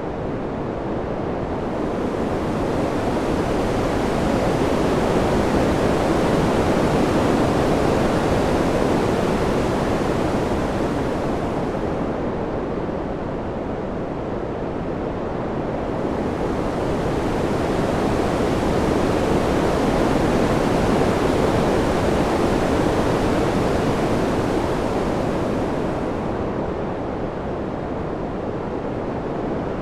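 Wind sound: a steady rushing noise that swells and eases slowly, rising to two broad peaks about fourteen seconds apart, its hiss brightening at each swell.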